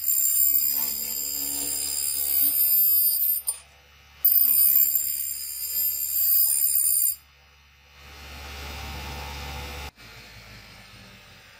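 Steel hatchet head ground against the wheel of a DeWalt bench grinder: a loud, high-pitched ringing screech in two passes with a short break between them, stopping about seven seconds in. A quieter low hum is left after that.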